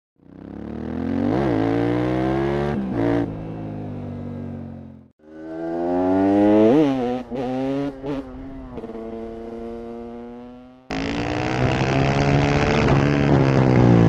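KTM 690 SMC R's single-cylinder four-stroke engine revving under riding, with quick sharp rev blips, brief dips at gear changes and revs falling away between them. The sound comes in separate short clips, each fading in or cutting in suddenly, the last one louder with more rushing noise over the engine.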